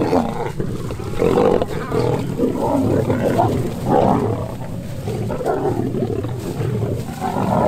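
Several lions growling and snarling over a carcass as they feed, in repeated loud, rough outbursts.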